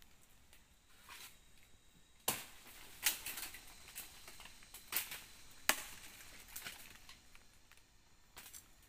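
Dry sticks and leaf litter cracking and crunching as they are handled, with about five sharp cracks among lighter crackling.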